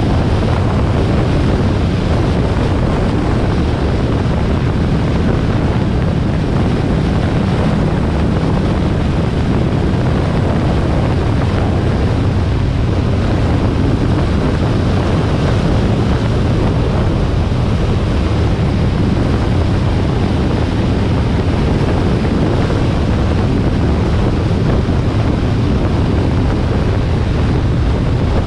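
Heavy wind rush on the microphone over the low, steady drone of a Harley-Davidson Sportster XL1200R's V-twin engine cruising at a constant speed, with no change in revs.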